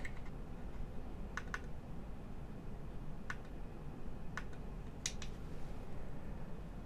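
Sharp clicks of front-panel push-buttons being pressed on a QMX+ transceiver and a bench power supply. There are about six clicks, two of them quick double clicks.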